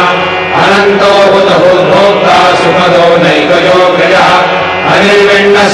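Devotional chanting: a voice reciting verses in a steady sing-song pattern over a sustained low drone.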